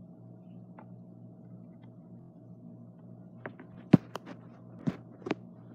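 A steady low electrical-sounding hum, then a quick run of about seven sharp clicks and knocks starting about three and a half seconds in, the loudest just before four seconds.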